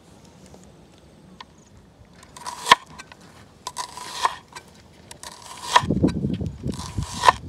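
A kitchen knife slicing a red onion into rings on a plastic cutting board: four slow cuts about a second and a half apart, each a crisp crunch through the onion ending in a sharp knock of the blade on the board.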